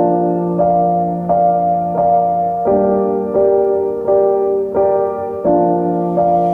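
Keyboard music: piano-like chords struck steadily about every two thirds of a second, the harmony changing every few seconds.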